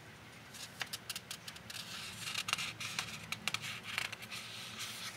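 Sketchbook paper being handled: rustling with many small sharp clicks and scratches, starting about half a second in.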